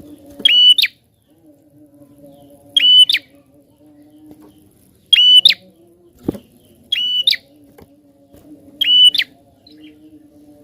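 Prinia (prenjak) calling: five loud, high, rapidly stuttering calls about two seconds apart. A faint steady low tone runs underneath, and there is one sharp knock a little past the middle.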